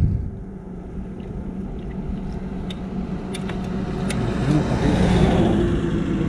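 A road vehicle approaching and passing, growing louder over the last two seconds, over a low wind rumble. A few light clicks and taps a few seconds in.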